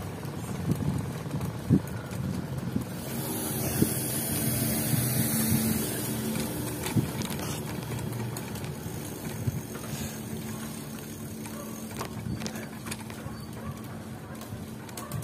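Motor vehicle running with road noise, its engine hum steadiest and clearest from about three to eight seconds in.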